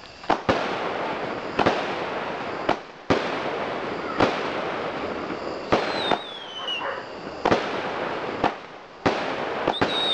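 Aerial fireworks going off: about a dozen sharp bangs with a steady hiss and crackle between them. A whistle falls in pitch about six seconds in.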